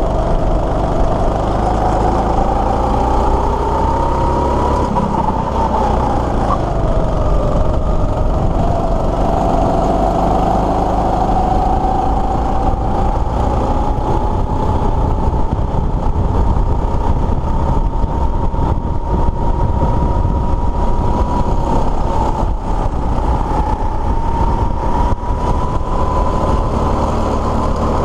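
Go-kart engine running hard, heard from the driver's seat. Its pitch climbs for about five seconds, drops as the kart slows around six seconds in, then pulls back up and holds high.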